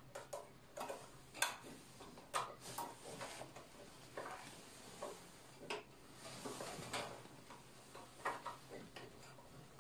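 Faint, irregular clicks and taps of multimeter test probes and leads being pressed onto the terminals of an electric heater's power switch. No continuity beep sounds: the switch is burnt through.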